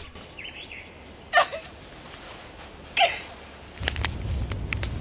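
Two short whimpering cries from a woman, about a second and a half apart. Near the end a campfire crackles over a low rumble.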